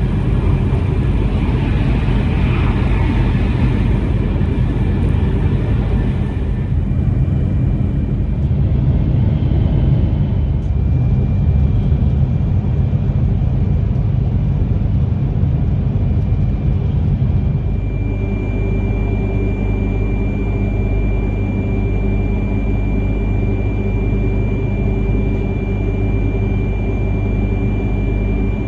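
Shinkansen running noise inside the passenger car: a loud, steady low rumble of the train at speed. About two-thirds of the way through it settles into a steadier hum with a thin high whine.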